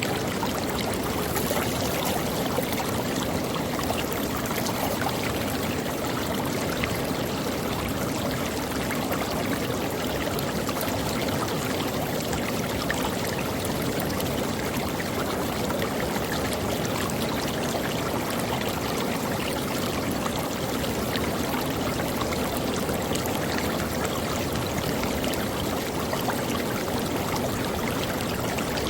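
Creek water flowing and splashing over rocks, a steady rushing with no breaks.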